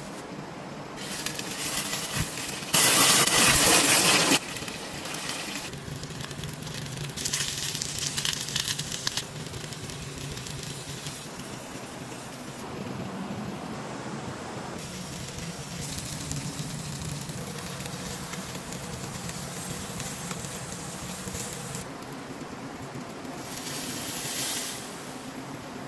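Food sizzling in hot oil in a small pan over a wood fire, flaring into loud hissing bursts several times as pieces of meat go into the pan, the loudest about three seconds in for a second and a half, with a quieter sizzle between.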